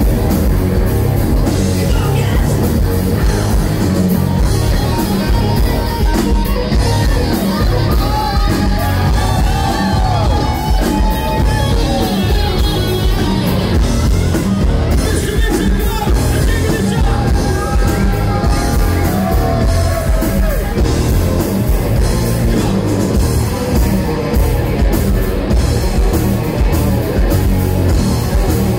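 Live rock band playing loud: electric guitars, bass guitar and a drum kit, with a lead melody line that bends and slides in pitch through the middle stretch.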